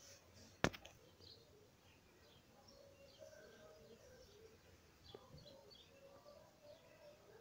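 Near-silent room with faint bird chirps in the background. One sharp click comes under a second in, and a softer one around five seconds.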